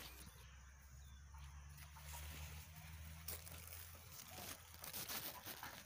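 Faint outdoor background: a low steady hum for the first few seconds, with scattered light rustles and clicks.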